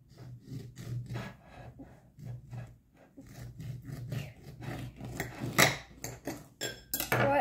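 Serrated kitchen knife sawing back and forth through a lemon in repeated short rasping strokes, the blade scraping on the plate beneath; the strokes grow louder near the end.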